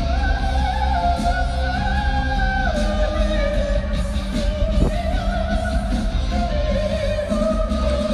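Background music: a rock song with a sung melody of long held notes over guitar and a heavy, steady bass.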